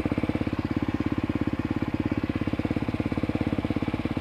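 Single-cylinder dirt bike engine idling steadily, with a rapid, even pulse.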